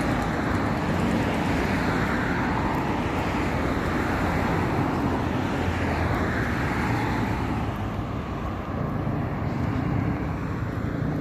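Road traffic noise from cars driving past on a multi-lane road, a steady rush that swells and fades as vehicles go by.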